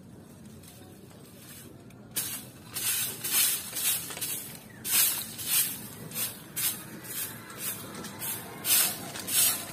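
Stiff stick broom sweeping a concrete path with quick, scratchy strokes, about one and a half a second, starting about two seconds in.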